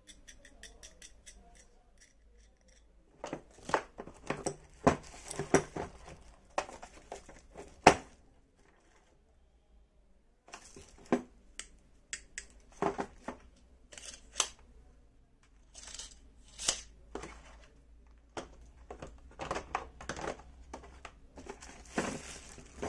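Clear plastic wrappers crinkling and tearing as hand tools are unwrapped, mixed with sharp clicks and clacks of the tools against a hard plastic tool case. It comes in irregular bursts with a couple of short quiet pauses.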